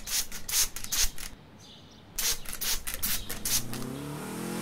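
Hand trigger spray bottle spritzing water, a rapid run of short hissing squirts about three or four a second with a brief pause in the middle. Near the end an engine comes in, rising in pitch as it revs up.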